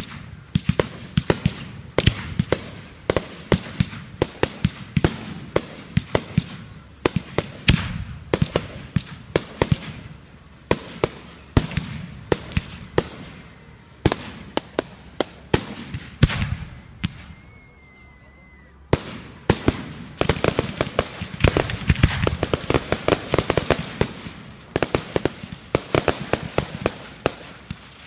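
Fireworks going off: rapid, irregular sharp bangs and crackles, several a second. There is a short lull about two-thirds of the way through, then a denser crackling volley.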